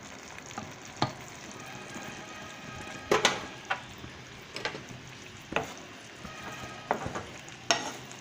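Spatula stirring vegetables in a pan of gravy coming up to a simmer, knocking sharply against the pan about seven times at irregular intervals, over a steady low sizzle.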